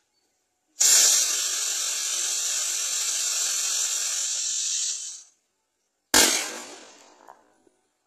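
Diwali firework rocket, strapped down so it burns in place, fires with a sudden loud hiss that holds steady for about four and a half seconds and then dies out. About a second later comes one sharp bang that fades over a second or so, the rocket's end charge going off.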